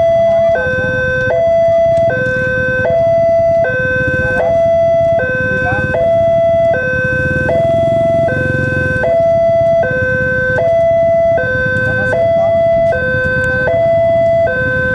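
Electronic warning alarm of a railway level crossing, two tones alternating about every three-quarters of a second, signalling that a train is approaching. A low vehicle rumble runs underneath, swelling about halfway through.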